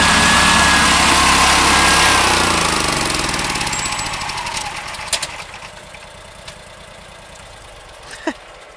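Berco snowblower on a John Deere Gator running, then shut off about two seconds in: the engine and a high whine slow down and fade out over about three seconds, with a single click near the end. It was stopped because a shear pin broke, on either the auger or the impeller.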